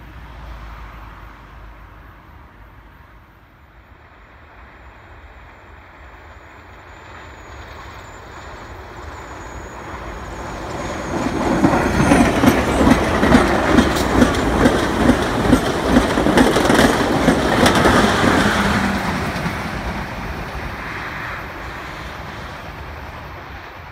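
Amtrak Cascades Talgo passenger train approaching and passing close by at speed. Its wheels clack evenly over the rail joints a few times a second, building up to a loud passage and then fading away.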